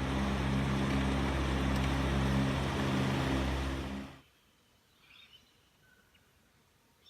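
An engine running steadily with a low hum, cut off abruptly about four seconds in. Faint bird chirps follow.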